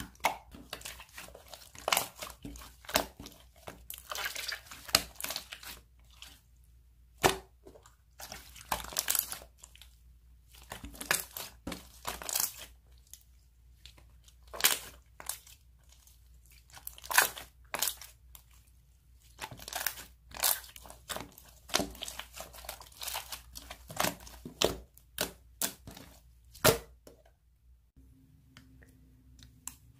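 Slime being squeezed and worked by hand, giving clusters of sharp crackles and pops in bursts of a second or two with short pauses between, stopping near the end.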